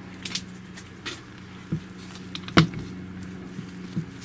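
A few light clicks and taps from small objects being handled, the loudest about two and a half seconds in, over a steady low hum.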